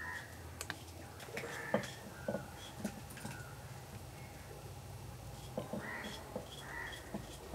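Short clicks and scrapes of a knife paring peel off a vegetable by hand, the sharpest about two seconds in. Crows caw a few times in the background, at the start and again near the end.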